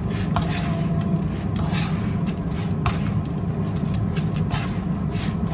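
A metal spoon clicks and scrapes against a nonstick frying pan as pieces of glutinous rice dough are turned in caramelized sugar, a few sharp clicks spaced about a second or more apart. Under them runs a steady low hum.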